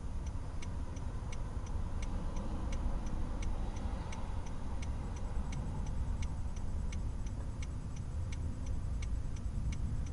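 A car's turn-signal indicator clicking steadily, about two to three ticks a second, over the low rumble of the stationary car.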